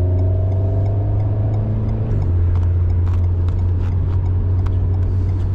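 Alpine A110S's turbocharged 1.8-litre four-cylinder, heard from inside the cabin, pulling gently in third with its pitch rising. About two seconds in it shifts up to fourth and then runs steadily, with a few light ticks.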